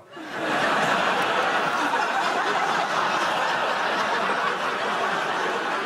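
Studio audience laughing, swelling up within the first half second and holding steady.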